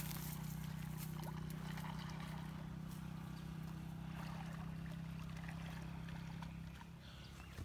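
A steady, low motor hum that drops away about seven seconds in, with faint water sounds from a swimmer.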